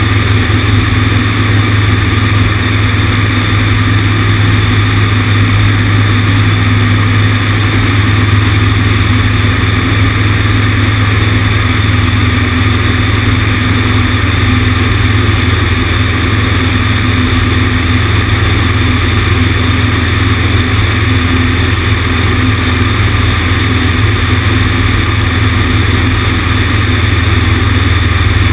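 Cessna 150's four-cylinder Continental engine and propeller droning steadily at constant power, heard from out on the wing with wind rushing over the microphone.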